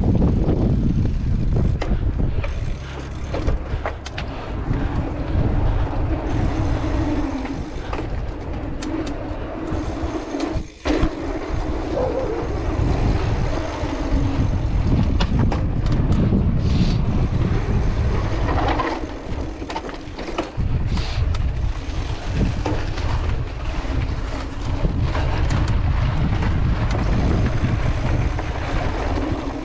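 Cross-country mountain bike riding at speed: wind buffeting the camera microphone and tyres rolling over pavement and then dirt, with scattered knocks and rattles from the bike.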